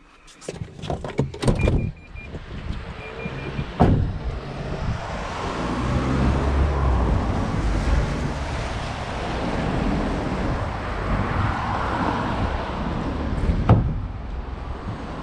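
Clatter and knocks of a bulky scrap item being handled at a small van, with two short beeps early on and a steady rumbling noise between two sharp knocks, one about four seconds in and one near the end.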